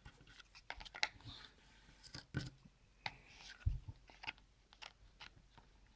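Cardboard jigsaw puzzle pieces being handled and pressed into place: scattered small clicks and taps, with one dull knock about halfway through.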